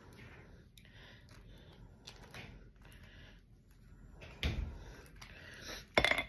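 A knife scraping cream cheese onto an English muffin, quiet handling sounds, then two dull knocks about a second and a half apart near the end.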